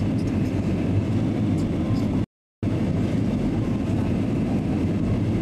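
Steady airliner cabin noise from a window seat in flight: engine and airflow rumble, low and even. The sound cuts out completely for about a third of a second a little over two seconds in.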